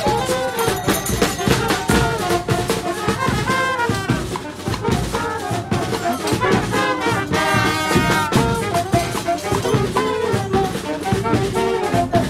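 Street brass band playing caporal dance music: trumpets carrying the melody over a steady beating drum.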